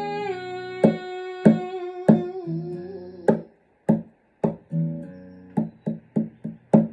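Music: a held sung note slides slowly down and fades out about halfway through, over a plucked guitar pattern with sharp drum hits, which carries on alone in a steady rhythm.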